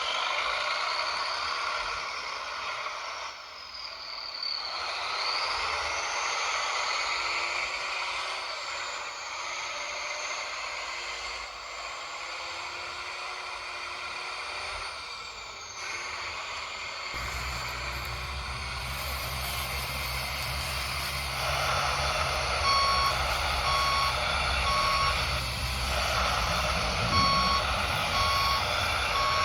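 RC toy truck running, its whines rising and falling in pitch. Just over halfway through, a low engine-like rumble starts, and near the end it gives reversing beeps, about three every two seconds, with a short break between runs.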